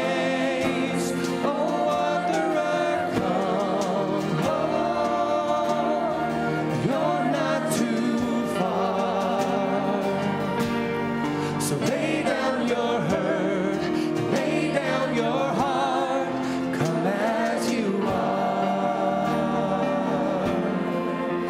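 Church worship singers with instrumental accompaniment, singing a slow gospel worship song.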